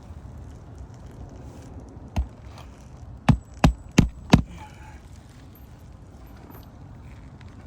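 Sharp knocks: one about two seconds in, then four in quick succession about a third of a second apart, over a low steady background.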